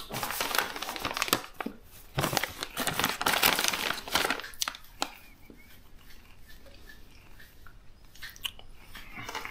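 A foil-lined paper snack bag crinkling as a hand shakes it and rummages inside for a cookie. There are two loud bouts of crinkling in the first four seconds, then only a few faint rustles.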